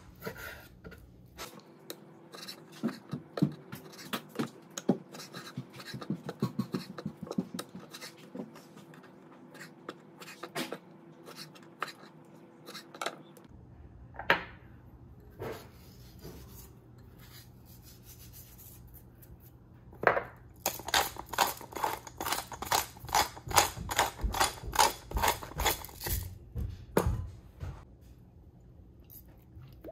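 A chef's knife slicing boneless chicken thighs on a wooden cutting board, the blade cutting and tapping the board in irregular strokes. Later a pepper mill grinds over a glass bowl of raw chicken pieces in a quick, even run of crunching clicks lasting about six seconds.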